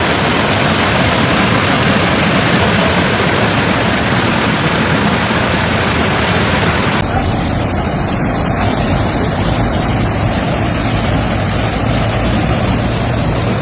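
Fast-flowing floodwater rushing: a loud, steady wash of noise, with a cut about seven seconds in to another recording of the same rush.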